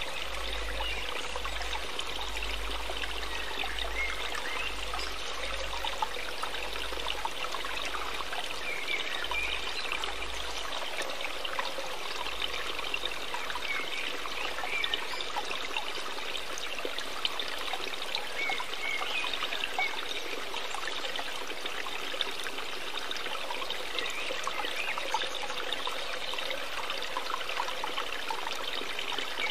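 Steady, even sound of running water, like a trickling stream, with no breaks.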